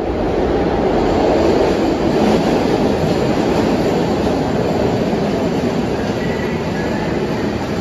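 SEPTA Market–Frankford Line M-4 subway train approaching along an underground platform: the steady, loud noise of its wheels running on the rails in the tunnel, with a faint high squeal about six seconds in.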